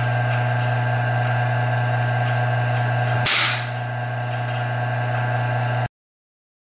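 Steady electrical hum and buzz from the high-voltage supply driving a plasma discharge tube, with a single sharp crack of a high-voltage discharge about three seconds in, after which the hum is slightly lower. The sound cuts off abruptly shortly before the end.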